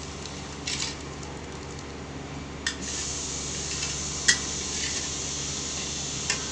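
Metal ladle stirring soup in a wok, knocking against the pan four times with short clinks over a steady hiss.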